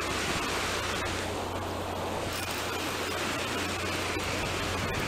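Fast river water rushing and churning over rapids, a steady, even noise.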